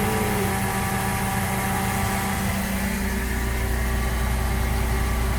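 Farm machinery engine running steadily with an even hum. The deepest part of the hum grows stronger about three seconds in.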